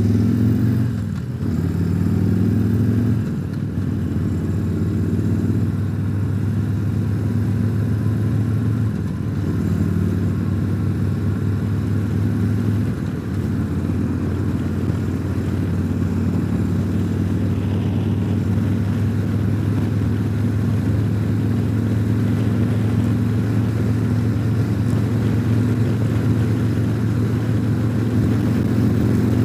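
Harley-Davidson Tri-Glide trike's V-twin engine running under way, heard from the rider's seat. Its note shifts a few times in the first seconds and once more about halfway through, then holds steady at cruising speed.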